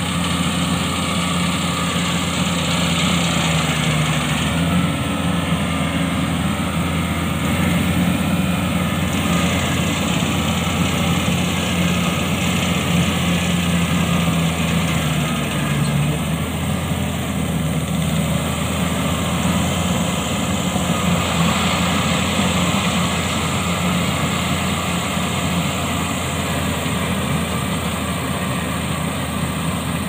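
Mini tracked rice combine harvester's engine running steadily while the machine cuts and threshes standing rice.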